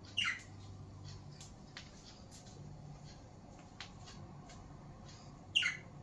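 Budgerigars calling: two short, loud squawks, each sweeping downward in pitch, one just after the start and one near the end.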